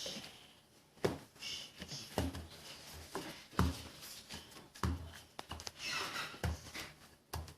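Pizza dough being worked on a board with a rolling pin and cutter: a soft knock every second or so, with rubbing sounds between.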